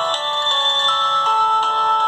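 Nokia 1110 ringtone playing: a simple electronic melody of clean, steady beeping tones, several sounding together, stepping from note to note.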